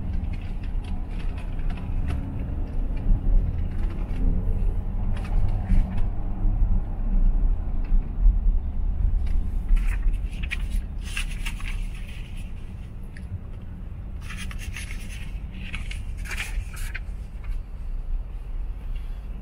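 Low rumble of engine and road noise inside a Range Rover L405's cabin while driving, quieter in the second half as the car slows in traffic. Two short runs of light clicks and rattles come around the middle.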